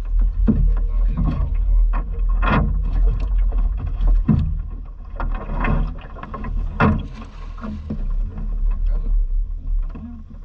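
Rustles and sharp knocks of a nylon cast net and its weighted edge being handled, gathered and thrown from a small boat, over a steady low rumble. The knocks come at irregular moments and fade out near the end.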